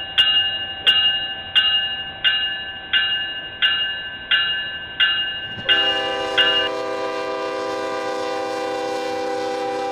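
A bell rings in evenly spaced strokes, about three every two seconds. About six seconds in a train horn comes in and holds one steady chord, and the bell stops a second later.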